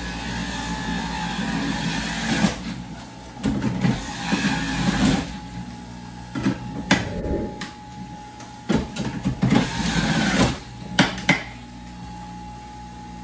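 Electric centrifugal juicer running with a steady motor hum, grinding lemons in irregular louder bursts as they are pushed down the feed chute with the plunger.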